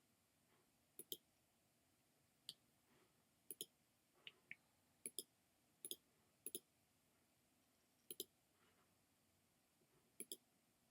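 Computer mouse clicking: about ten short clicks, most of them quick double clicks, spaced a second or so apart.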